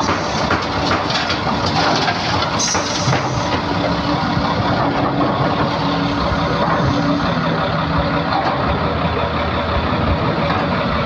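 Diesel engine of an XCMG ZL50GN wheel loader running steadily, with a short hiss about three seconds in.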